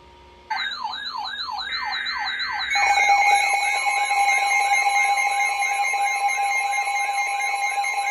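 Electronic emergency alert tone ahead of a tornado warning broadcast: a siren-like tone warbling up and down about three times a second starts about half a second in. Near three seconds in, a louder steady alert tone joins it.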